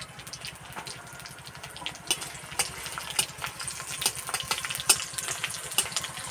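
Crushed garlic and dried red chillies sizzling in hot mustard oil in an iron kadai, with sharp crackles and spits that grow more frequent from about two seconds in, as a metal spatula stirs them. A steady low throbbing rumble runs underneath.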